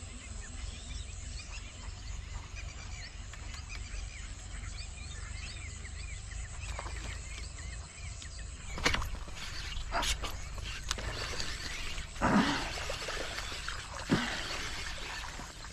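Small birds chirping over a steady low rumble. From about nine seconds in, several sharp knocks and rustles break in, the loudest about twelve seconds in.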